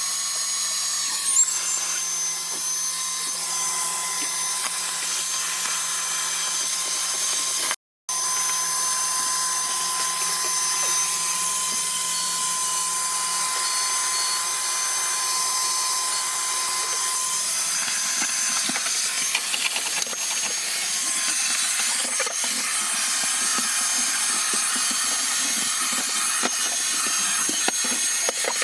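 Wet/dry shop vac running steadily with a high motor whine, the hose sucking air inside a car. In the second half there are irregular scuffs as the nozzle works over surfaces, and the sound cuts out for a moment about eight seconds in.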